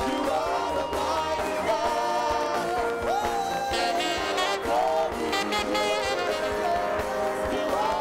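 Live gospel praise-and-worship music: a band playing, with singers holding and bending a sung melody over it.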